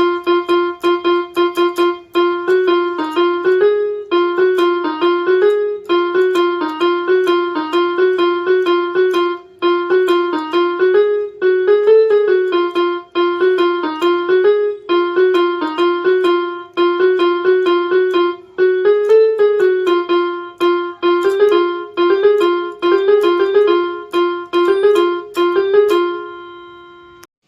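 Electronic keyboard with a piano voice, playing a simple one-note-at-a-time melody in a narrow range. Short even notes run in phrases with brief pauses, ending on a held note that fades out near the end.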